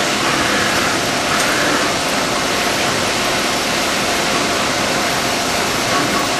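CNC vertical machining center milling the bore of a metal casting under flood coolant: a steady hiss of cutting and coolant spray over the running spindle, with faint steady tones.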